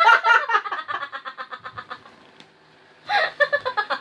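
A man and a woman laughing hard, in quick repeated bursts that fade out about two seconds in, then break out loudly again about a second later.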